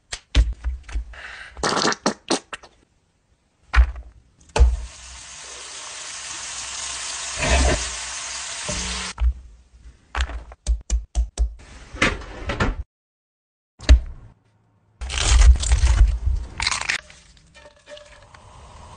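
A string of food-preparation sounds cut one after another: knocks and taps of food and utensils on a wooden cutting board, and stretches of steady hiss, the last of them beaten egg sizzling in a skillet.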